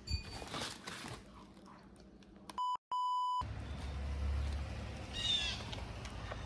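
An electronic beep at about 1 kHz, heard about two and a half seconds in as a short blip followed at once by a steadier tone of about half a second, with dead silence around it.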